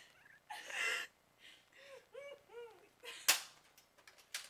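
Stifled, breathy giggling in a string of short high-pitched bursts, then a single sharp pop about three seconds in from a Nerf foam-dart blaster firing.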